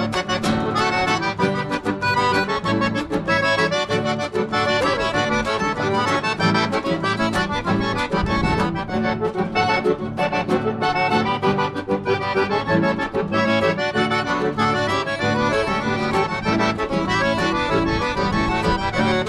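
Accordion playing an instrumental break in a gaúcho (southern Brazilian) folk song, a quick melody over steady accompaniment with a bass line.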